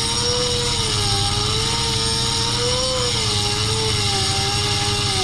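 Handheld rotary grinding tool running against a blue C6 Corvette ZR1 brake caliper, grinding metal off it. Its steady high whine wavers slowly up and down in pitch as the load on the bit changes.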